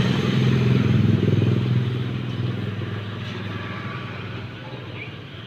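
A motorcycle engine going by, loudest about a second in and then fading steadily away.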